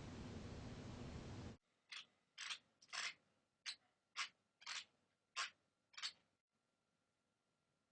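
Teeth grinding in sleep (bruxism): eight short grinding scrapes in about four seconds, after a couple of seconds of steady hiss.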